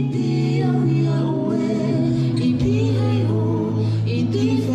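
Music with several voices singing together over a held low note.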